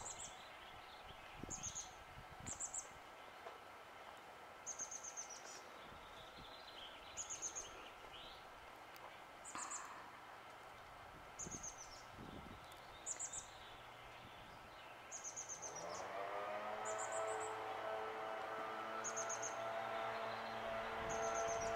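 A small bird's short, very high chirps, repeating every second or two. About fifteen seconds in, a motor's steady hum rises in and holds, louder than the chirps.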